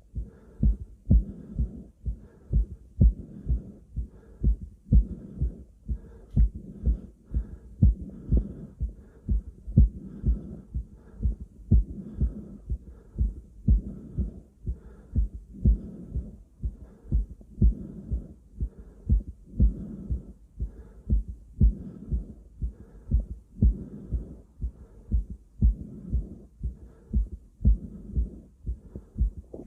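A person's own heartbeat heard through a stethoscope on the chest: deep, steady thumps at about one beat a second.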